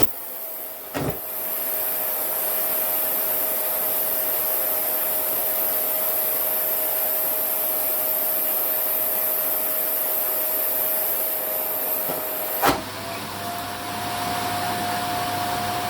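Vacuum cleaner running steadily while sucking at a down jacket, its motor hum under a constant rush of air. A high whistle sets in with a knock about a second in and stops with another knock near the end.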